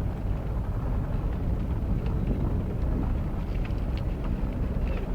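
Ferry engines running with a steady low rumble, with a few faint ticks and clicks above it.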